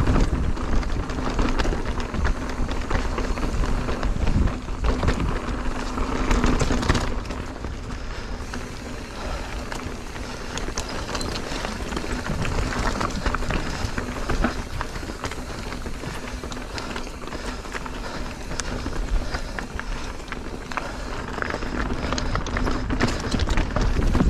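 Mountain bike ridden fast along a dirt trail: tyres rolling over the ground and the bike rattling and clattering over the rough surface, with wind rumbling on the helmet camera and a steady hum through much of it.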